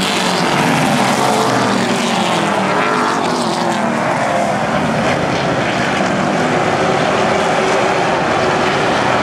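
A pack of pro stock race cars' V8 engines running hard at racing speed, many engines at once in a steady loud drone. A few seconds in, the pitch drops as cars go by.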